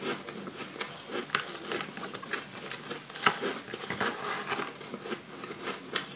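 Close-up chewing of crushed, coloured sweet ice: a dense run of irregular crunches and crackles, with one sharper crunch a little past three seconds. Fingers pick ice chunks from a plastic tray.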